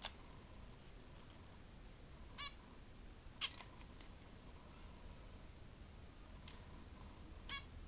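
Zebra finch giving short calls at irregular intervals, a little cluster of them around the middle, with a few light ticks in between.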